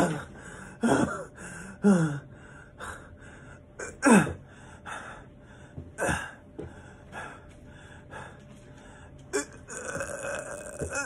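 A man gasping and panting with effort while straining through push-ups on the floor, with several groans that slide down in pitch, the loudest about four seconds in.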